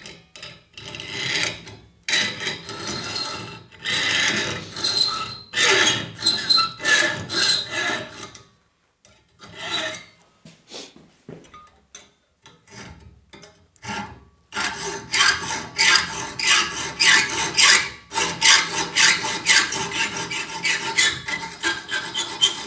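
Rasping back-and-forth hand-tool strokes on aluminium angle profile, cutting out a small notch. Uneven strokes at first, a pause with only scattered scrapes, then a fast, steady run of strokes in the last third.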